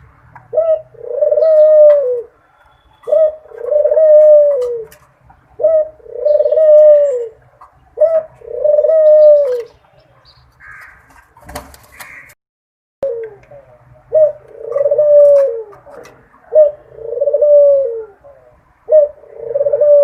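A dove cooing over and over, each call a short note followed by a longer drawn-out coo that drops in pitch at its end, repeated about every two and a half seconds. There is a pause of a few seconds midway with a soft rustle and a click.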